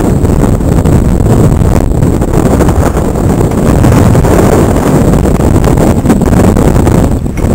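Loud, steady rumble of wind buffeting the microphone of a camera mounted on a mountain bike as it rides over snow, mixed with the bike's rolling vibration; it dips briefly near the end.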